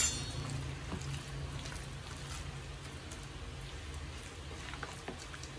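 Faint wet squishing and crackling of a hand working a thick spice-paste marinade and curry leaves into chicken pieces, over a low steady hum.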